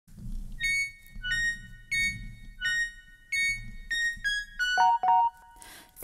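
Short musical intro of high, bell-like electric-piano notes played one at a time, each ringing briefly. The last few notes step down lower in pitch.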